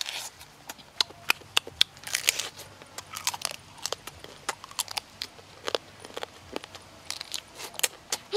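A person chewing and biting into cooked crab, with irregular sharp cracks and crunches of shell.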